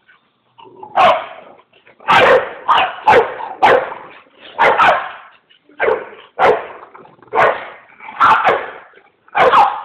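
Dog barking repeatedly, about a dozen sharp barks at uneven intervals starting about a second in.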